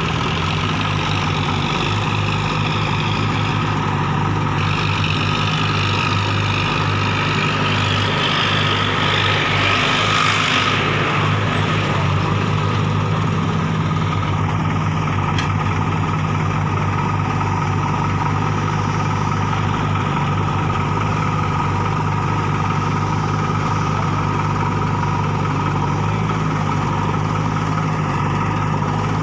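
Diesel engines of a JCB 3DX backhoe loader and a Sonalika DI 60 tractor running steadily, with a brief hissing swell about ten seconds in.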